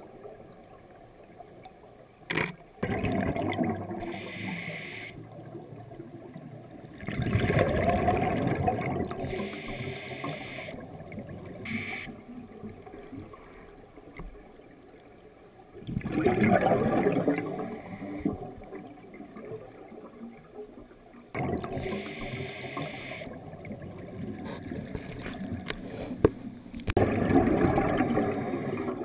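A scuba diver breathing through a regulator underwater. There are short hissing inhalations, and three exhalations about every ten seconds as bursts of bubbling rumble. A couple of sharp clicks, about two seconds in and again near twelve seconds, are the underwater housing's still-camera shutter firing.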